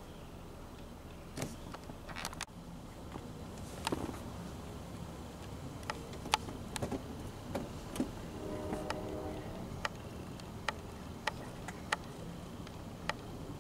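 A steady low rumble of distant road traffic, with scattered sharp clicks and snaps throughout and a brief steady pitched tone lasting about a second, a little past the middle.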